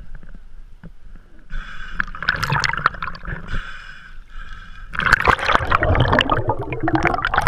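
Sea water gurgling and splashing, growing busier and louder about five seconds in.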